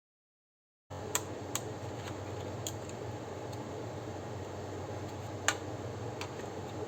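Silence for about the first second, then a steady low hum with a handful of short, sharp clicks and taps, typical of hands working on the modem router's plastic case with tools.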